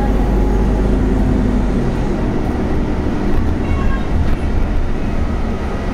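Inside a Scania compressed-natural-gas articulated city bus on the move: steady low engine and drivetrain rumble with road noise, the low tone shifting about two seconds in.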